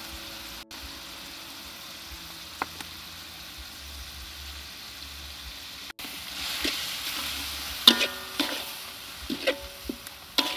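Minced meat sizzling in a hot metal wok as a metal spatula stirs it: a steady frying hiss, louder after about six seconds, then several ringing clinks and scrapes of the spatula against the wok near the end.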